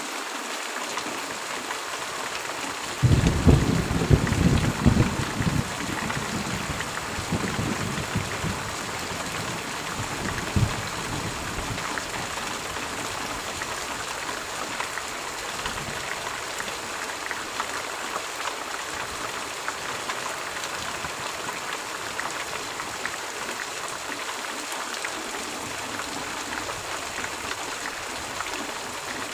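Steady rain hiss, broken about three seconds in by a clap of thunder that rumbles for several seconds and dies away, with one more short crack near ten seconds.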